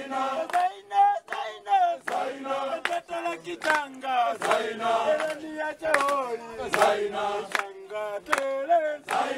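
A group of men singing and chanting together in Swahili, many voices at once, with sharp claps roughly once a second.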